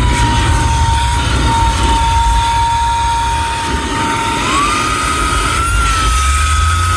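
HOTO Auto Care Air Duster and Vacuum, a cordless handheld car vacuum, running with a high motor whine. The whine holds a lower pitch, then rises about four and a half seconds in as the airflow through the nozzle changes.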